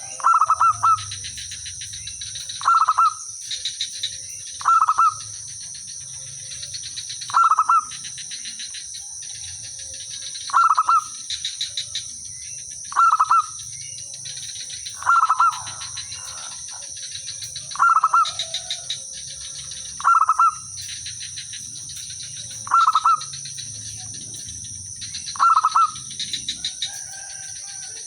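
Zebra dove singing its cooing song over and over: a short run of soft notes leading into a loud rolling coo, repeated roughly every two to three seconds.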